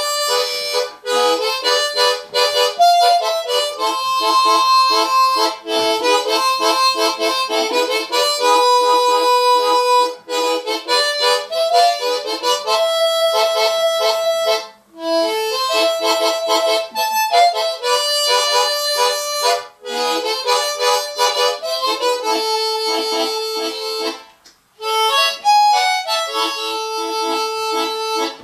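Solo harmonica playing a folk-style melody in phrases, notes over sustained chords, with a few short breaks between phrases.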